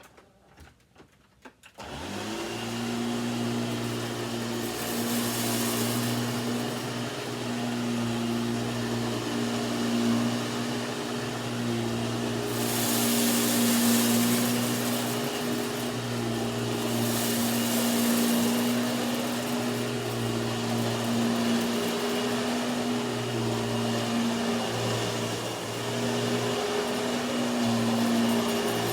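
Hoover WindTunnel 2 upright vacuum cleaner switching on about two seconds in and running steadily with a humming motor and rushing air. A few stretches of louder hiss come as it is pushed over the floor picking up rice.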